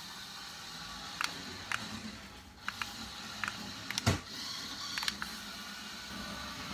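Small battery-powered toy RC car driving on bare rear rims across a hard floor: a faint steady whir from its electric motor, broken by sharp clicks and ticks, with a louder knock about four seconds in.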